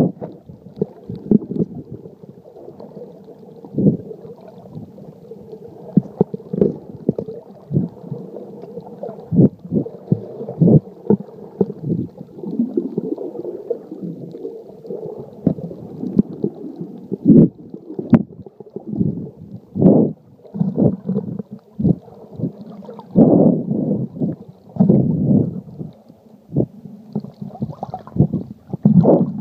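Underwater water movement heard through a sealed waterproof phone case: a muffled, low rumble broken by many irregular thumps and gurgling surges.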